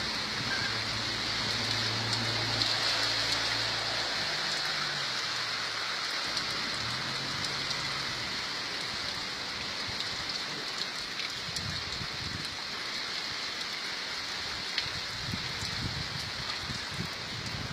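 Steady rain falling, an even hiss with scattered drops ticking through it. A low hum runs underneath for about the first half, then fades out.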